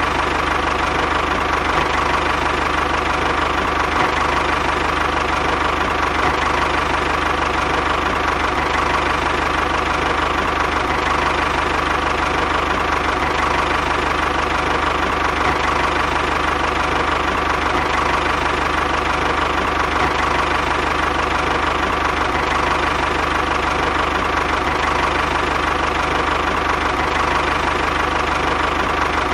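Tractor engine running steadily at one even speed.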